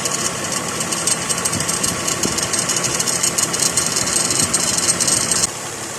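A Lexus ES330's 3.3-litre 3MZ-FE V6 running with the AC clutch engaged, with a fast, harsh metal-on-metal grinding rattle from around the alternator and AC compressor. The grinding cuts off about five and a half seconds in while the engine keeps running. The noise was finally traced to a wrong bracket bolt.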